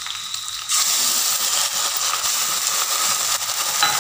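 Ground onion paste dropped into hot mustard oil in a kadhai, setting off a steady frying sizzle that starts suddenly under a second in.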